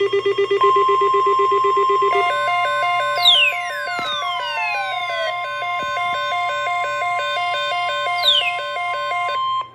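NOAA Weather Radio 1050 Hz alert tone: one steady high beep that starts about half a second in, holds for about nine seconds and stops just before the end, signalling that an urgent weather message follows. Under it plays electronic music with beeping, stepping notes and falling swoops.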